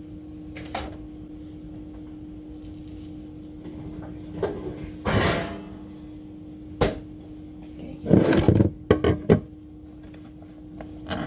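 Kitchen handling noises: a rustle about halfway through, then a sharp knock and a cluster of clatters and knocks as green beans are brought to and handled on a plastic cutting board. A steady low hum runs underneath.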